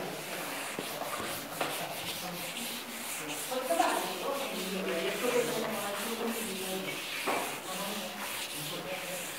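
Blackboard duster rubbing chalk off a chalkboard in repeated back-and-forth strokes.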